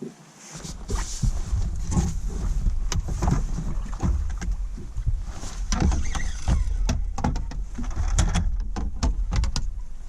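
Low, steady rumble of wind buffeting the microphone on a small fishing boat, starting suddenly about half a second in, with irregular knocks and taps from handling in the boat throughout.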